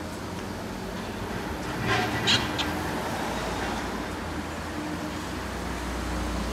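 Diesel engine and hydraulics of a Liebherr 954C high-reach demolition excavator running steadily. A brief high squeal, the loudest sound, comes about two seconds in.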